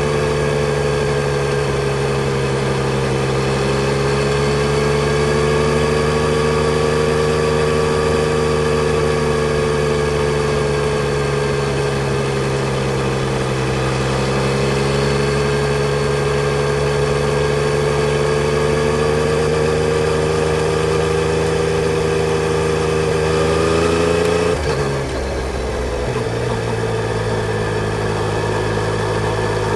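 Yamaha Tracer 900 GT's three-cylinder engine running steadily, its note rising and falling slightly. About 24 seconds in, the sound dips briefly and settles on a lower note.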